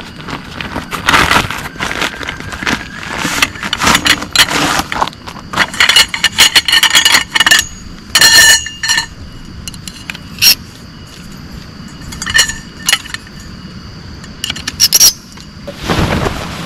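Irregular clinking and scraping of hard objects being handled, with a few strokes that ring briefly like struck metal.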